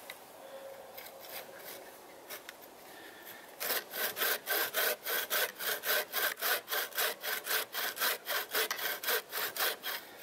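Handmade wooden bow saw cutting through a piece of wood: a few light strokes, then from about four seconds in a steady run of quick strokes, about three a second. The paracord-tensioned blade is still not quite tight enough and bows in the cut.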